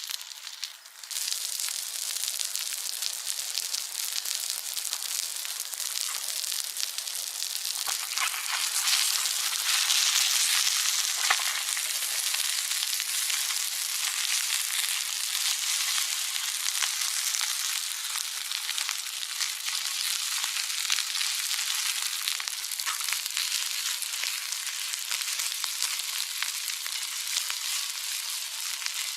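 Food sizzling in an iron frying pan over a campfire: a steady hiss that starts about a second in and grows louder around eight seconds in, with scattered small pops.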